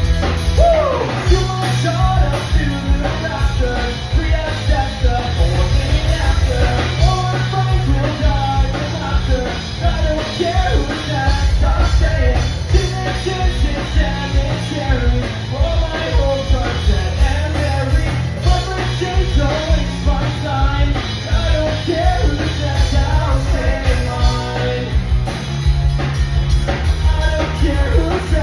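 Rock song with a singer over the band, loud and continuous.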